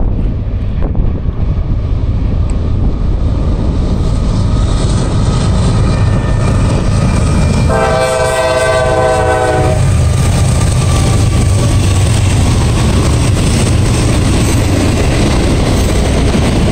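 Norfolk Southern freight train passing at speed: the diesel locomotives rumble as they approach, the air horn sounds one chord for about two seconds about halfway through, then the rumble grows heavier as the loaded hopper cars roll by on the rails.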